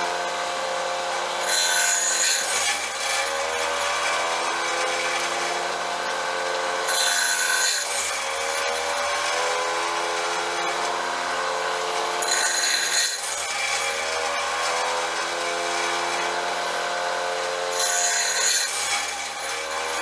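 Automatic bandsaw blade sharpener running: a steady motor hum and whir, broken about every five and a half seconds by a short, high grinding hiss as the grinding wheel drops onto the next tooth of the sawmill band blade. This happens four times as the blade is indexed tooth by tooth.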